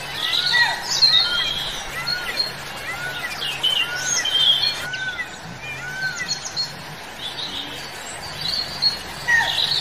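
Several forest birds calling: one repeats a short arched whistled note about twice a second through the first six seconds, over other high chirps.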